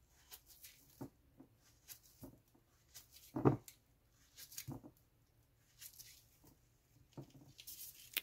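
Knife slicing a ripe plantain held in the hand, the rounds dropping into a glass bowl: quiet soft cuts and light taps, with one louder dull knock about three and a half seconds in.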